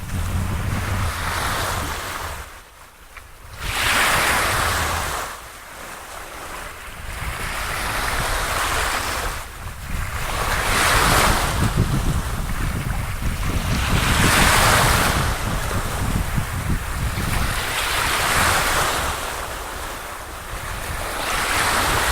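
Waves washing in swells every three to four seconds, with wind rumbling on the microphone.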